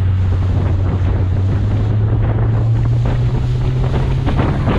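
Rigid inflatable boat running at speed: a steady low engine drone that creeps slightly up in pitch, under wind buffeting the microphone and water rushing past the hull.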